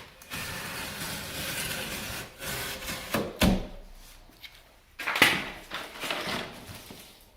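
Cardboard box being cut down and handled: long scraping rasps, a single solid thump about three and a half seconds in, and another rasp just after five seconds.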